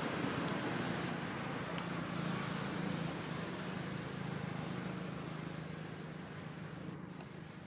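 Road traffic: a passing vehicle's engine and tyre noise, a steady rumble that slowly fades away as it moves off.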